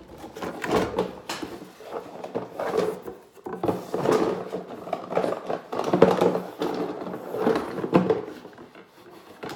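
Plastic parts of a Bison King Megazord toy being handled and fitted together: an irregular run of clicks, knocks and scraping.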